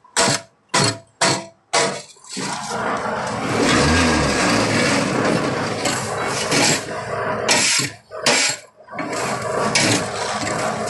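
Gritty scraping and rattling of concrete mix being spread across the steel mould of a concrete block making machine, in a series of short strokes with a longer run of scraping in the middle.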